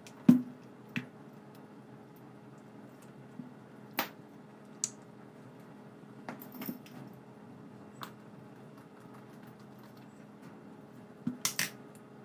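Scattered small clicks and taps of hand work on a DSLR camera's internals, about a dozen in all, the loudest near the start and a quick run of three near the end, over a faint steady hum.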